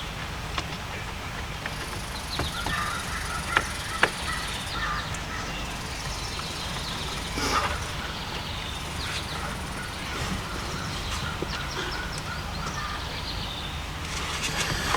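Scattered light clicks and taps of hands and a tool working at a car's steering-wheel airbag connector and plastic trim, two of them sharper a few seconds in, over a steady low hum.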